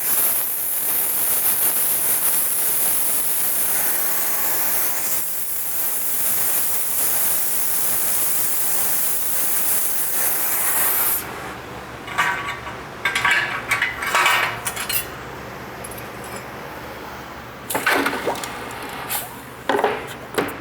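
A brazing torch flame hisses steadily, then shuts off suddenly about eleven seconds in. Clusters of metallic clinks and scrapes follow, from metal pieces and tools being handled.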